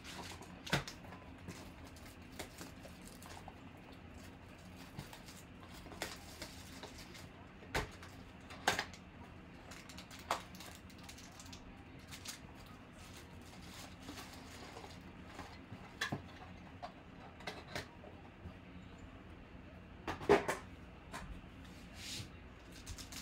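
A cardboard box of Panini Absolute football cards being opened by hand and its pack and cards handled on a table: scattered taps, clicks and rustles of cardboard and foil, the loudest a sharp knock about twenty seconds in, over a faint steady hum.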